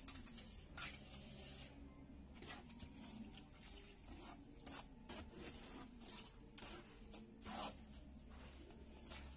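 Plastering trowel spreading and scraping cement mortar over a lightweight concrete block wall: a series of short, irregular scrapes.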